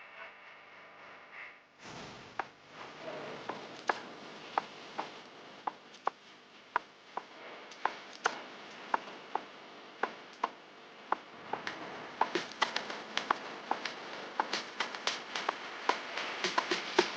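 A run of sharp, irregular clicks and clinks over a steady background hiss, coming faster and more densely from about twelve seconds in. Faint music plays for the first two seconds.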